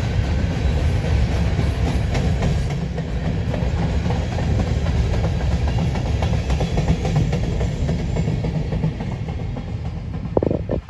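Freight train of covered hopper cars rolling past with a steady low rumble and irregular clicking and clacking of steel wheels on the rails. The rumble goes on after the last car has gone by, as the train moves away. A single sharp knock sounds near the end.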